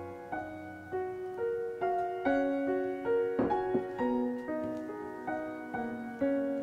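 Background piano music: soft single notes played one after another at an unhurried pace, each ringing and fading away.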